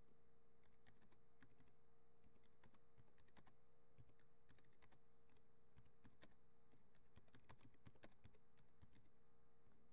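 Faint typing on a computer keyboard: a quick, irregular run of key clicks over a low steady hum.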